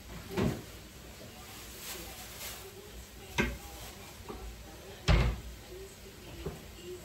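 Three knocks and thumps of someone handling things in a kitchen, the loudest about five seconds in.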